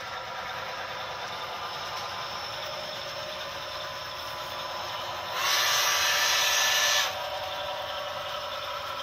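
HO scale model trains running on the layout track, a steady whir of motors and wheels. A loud hiss, from a model steam locomotive, starts about halfway through, lasts about a second and a half, and cuts off sharply.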